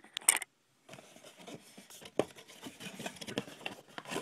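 Cardboard box being opened and handled by hand: rustling and scraping of the cardboard and the paper inside, with a sharp tap near the start and another about two seconds in. The sound drops out completely for about half a second shortly after the start.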